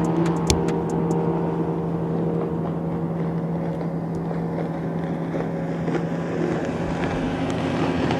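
Motorboat engine running with a steady low hum, with wind and water noise around it.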